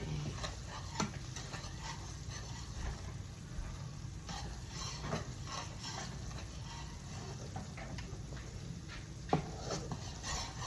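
Spoon stirring and scraping in a pan of homemade gravy cooking on the stove, with scattered light scrapes and taps over a faint sizzle.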